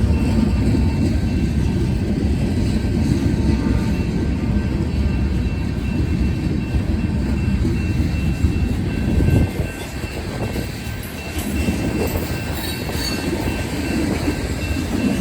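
A CSX freight train rolling past, with a steady rumble of wheels on rail. It eases off briefly about ten seconds in, then builds again.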